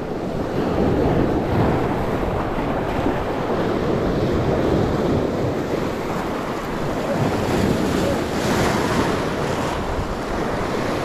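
Sea waves breaking and washing over a rocky shore, a steady rushing wash of surf.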